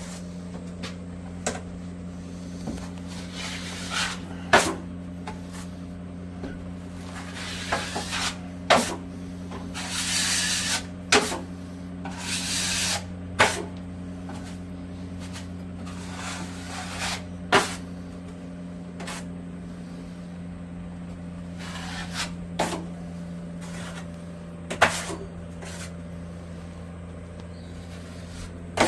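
Hand plastering tools scraping and knocking: scattered sharp taps and clicks with a few longer scrapes, over a steady low hum.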